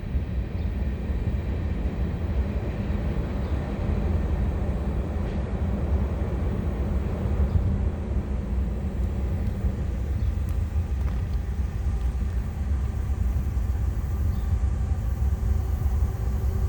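Norfolk Southern diesel freight locomotives running, a heavy, steady low rumble.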